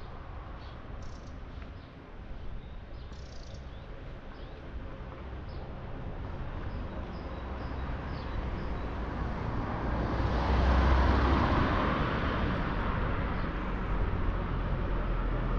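A road vehicle approaching and passing, its tyre and engine noise swelling slowly to its loudest about eleven seconds in, over a low rumble. A few small bird chirps sound in the first seconds.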